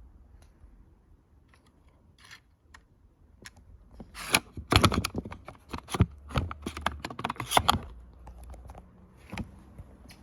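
Sharp mechanical clicks and clacks from a Ryobi 18V cordless nail gun: a few scattered ones, then a dense run from about four to eight seconds in.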